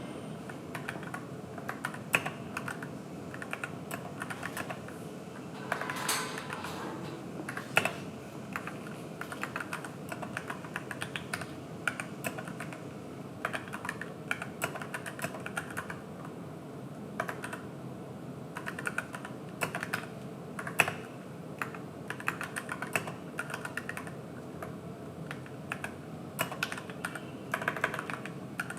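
AKKO 3061S Tokyo R2 61-key mechanical keyboard with pre-lubed Gateron switches being typed on: a steady run of irregular keystroke clicks, several a second, with a few louder strokes.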